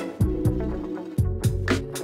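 Background music with a steady drum beat, a bass line and sustained instrument notes.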